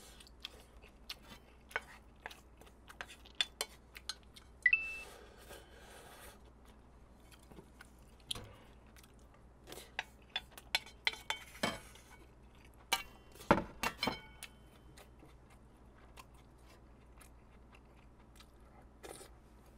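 Eating sounds: a spoon clicking and scraping against a bowl while scooping mixed bibimbap rice, with chewing in between. There is a longer scrape about five seconds in and a run of sharper clinks about ten to fourteen seconds in.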